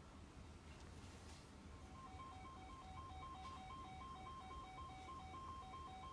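Faint Emergency Alert System attention signal: two steady tones sounding together, broken up and choppy, starting about two seconds in over a low hum.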